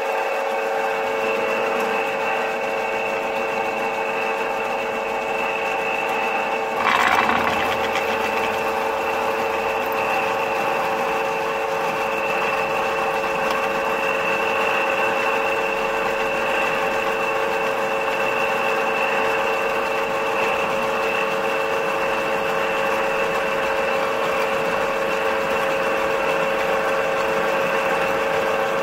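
Toyota 2GR-FE V6 engine running with a rapid mechanical clatter from a faulty VVT-i cam phaser (timing coupler). A brief louder surge comes about seven seconds in.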